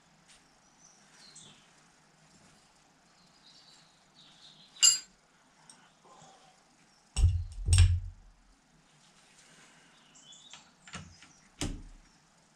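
Metal hand tools working on a Fordson Major's cylinder head and valve gear: one sharp ringing metal clink about five seconds in, two heavier knocks with a dull thud a little after, and two shorter clicks near the end. Faint bird chirps come and go behind.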